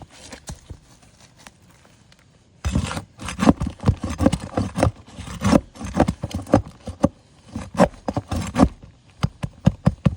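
Steel roofing flat bar scraping and knocking against asphalt shingles as roofing nails are pried out. A few faint clicks, then, about two and a half seconds in, a rapid, uneven run of rough scrapes and taps.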